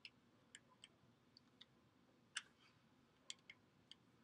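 Faint, irregular small clicks, about nine, one louder about two and a half seconds in: a screwdriver working the terminal screws of a NEMA 5-15P plug, metal tip and plastic housing clicking as it is tightened down.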